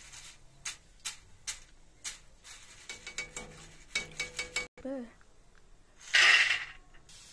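Wire-mesh skimmer tapping and scraping against a steel wok of frying oil, a run of sharp clicks, several in quick succession around three to four seconds in. About six seconds in comes the loudest sound, a brief metallic clatter of well under a second as the fried snacks are tipped from the skimmer onto a steel plate.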